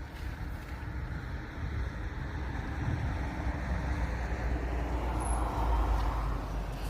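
A road vehicle going past, its engine and tyre noise growing louder to a peak about five or six seconds in, then easing off.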